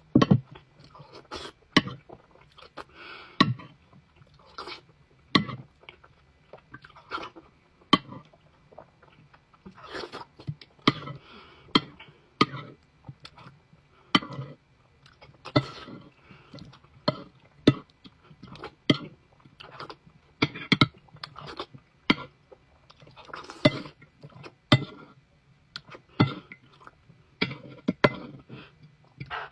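A person chewing food close to the microphone, with repeated wet mouth clicks and smacks about once a second.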